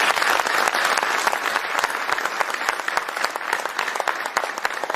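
A large seated audience applauding, many hands clapping in a dense, steady patter that eases slightly toward the end.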